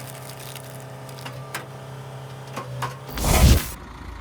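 Firewood processor running with a steady mechanical hum and a few light clicks, then a loud crash about three seconds in as wood is cut or split, followed by a lower engine rumble.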